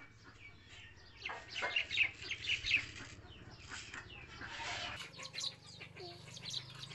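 Chickens clucking in many short, quick calls, busiest in the middle of the stretch.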